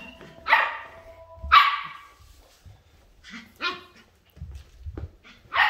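A puppy barking during play, four or five short, sharp barks at uneven intervals, the loudest about a second and a half in.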